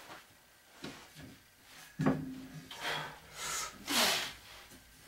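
A man breathing out hard in short, forceful bursts as he starts a set of bar dips, together with rubbing and creaking from the dip station under his weight. The sounds come in the second half, a breath about every half second.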